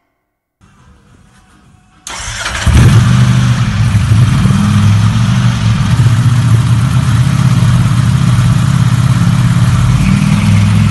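Motorcycle engine, faint at first, catching about two seconds in and then running loud and steady with a strong low note.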